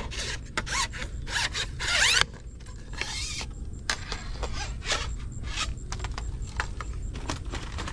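Fishing reel being cranked to bring in a hooked fish: rasping winding with many sharp clicks, loudest in the first two seconds and ending there in a rising whirr.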